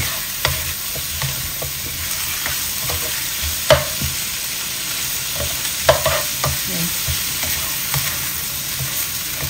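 Squid pieces sizzling in oil in a nonstick wok, stirred with a spatula that scrapes and taps against the pan now and then, with the sharpest knocks a little under 4 s in and about 6 s in.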